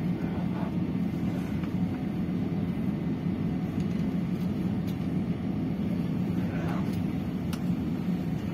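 Cabin noise inside an Airbus A320-214 rolling on the ground after landing: a steady low rumble from its CFM56-5B engines and the wheels on the pavement.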